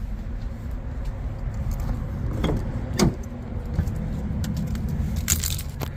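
5.9 Cummins inline-six turbodiesel idling through a new 5-inch exhaust turned down ahead of the rear axle, a steady low rumble. A few sharp clicks sound over it.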